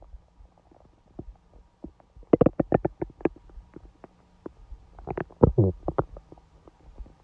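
A woman's stomach gurgling during her period: two clusters of quick wet pops and gurgles, the first about two seconds in and the second about five seconds in with a short low growl.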